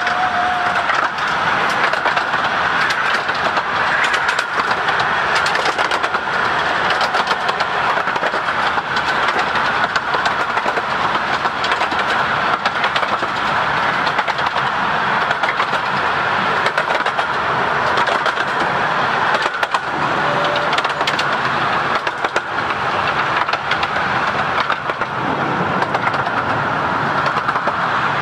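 Two 15-inch gauge miniature railway trains running side by side at speed: a steady, loud rumble and rattle of coach wheels on the rails, with a high steady ring running under it.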